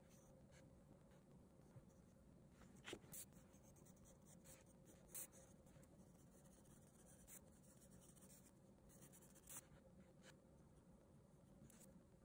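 Faint pencil scratching on drawing paper in short strokes, with a few sharper scratches scattered through.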